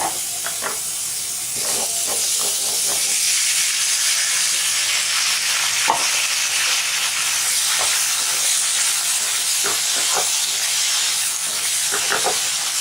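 Blanched cauliflower florets sizzling in a pan with onion and a coarse garlic, pepper and cumin masala, the frying hiss growing louder about two seconds in. A spatula knocks and scrapes against the pan now and then as it is stirred in.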